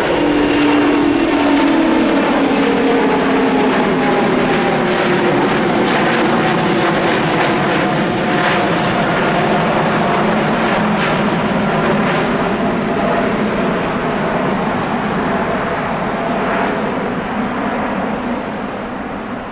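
Jet engine noise from a Finnair Airbus A350 climbing out overhead after takeoff, its Rolls-Royce Trent XWB turbofans at climb power. Engine tones fall in pitch as it passes over, and the sound fades slightly in the last few seconds as it climbs away.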